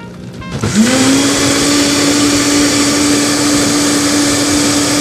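Countertop blender starting up about half a second in, its motor pitch rising quickly and then holding a steady hum as it blends bok choy, grapefruit and honey into juice.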